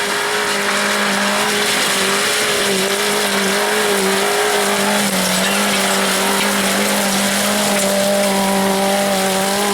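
4x4 off-road vehicle's engine held at high, steady revs under full throttle as it climbs a slope of loose stone, with the hiss and crunch of tyres on the stones. The pitch stays almost level, wavering slightly.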